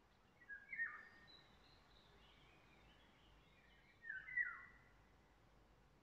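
A songbird sings two short phrases about three and a half seconds apart, each dropping in pitch, with fainter high chirps in between over a quiet woodland background.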